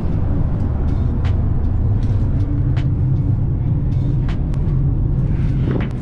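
Steady low rumble of the bulk carrier's machinery heard inside the steel cargo hold, with irregular sharp clicks and knocks from climbing the hold's steel access ladder.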